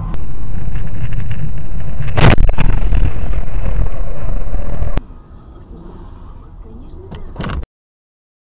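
Loud road and wind noise of a car's dashcam at highway speed, with one sharp collision impact about two seconds in. After a cut, quieter city traffic noise with a brief knock, then a gap of silence near the end.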